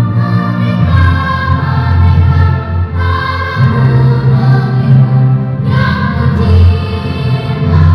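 Children's school choir of boys and girls singing together in parts, holding long notes that change every second or two.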